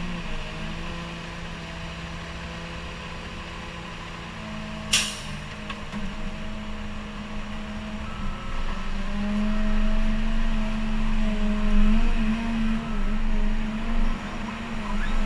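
Caterpillar 930K wheel loader's diesel engine running under hydraulic load as the loaded bucket is lifted and tipped, its pitch stepping up twice and the engine getting louder in the second half as it revs. A single sharp clank about five seconds in.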